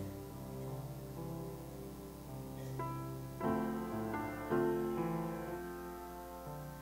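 Grand piano played solo in slow, sustained chords, with louder chords struck about three and a half and four and a half seconds in.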